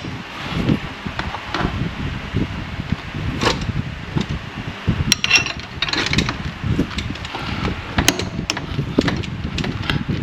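Hand work on a serpentine belt and its pulleys in an engine bay, with the engine off: irregular clicks, light knocks and rubbing as the belt is fed back around the pulleys, with a cluster of sharper clicks around the middle.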